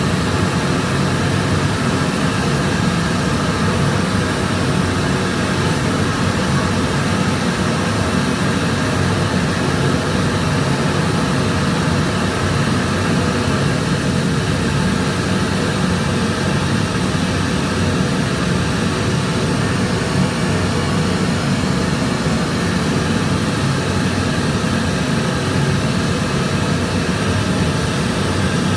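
Steady rushing road and wind noise of a moving vehicle with a low engine hum underneath, unchanging throughout.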